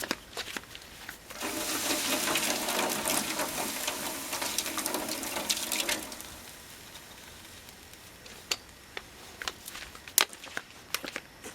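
Water poured from a bottle onto a burning, gasoline-soaked Zippo lighter to put the fire out, a loud pour lasting about four and a half seconds, then dying away to scattered small clicks and ticks.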